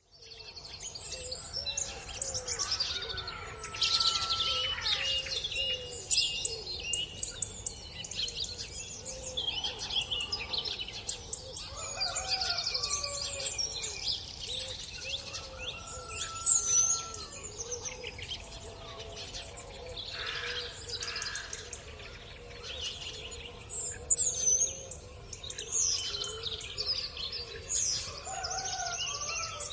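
Morning birdsong at a farm: many birds calling at once, with overlapping chirps, rapid trills and whistles, over a steady low background rumble.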